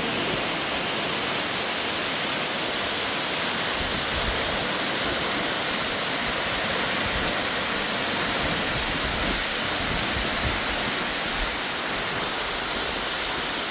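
Waterfall rushing steadily, a loud even roar of falling water with a few low thumps of wind on the microphone.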